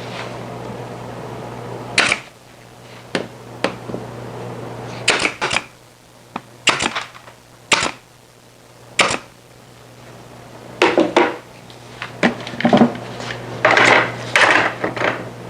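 Wooden workpieces and hand tools being handled on a workbench: irregular sharp knocks and clatters, some in quick clusters, with quieter stretches between.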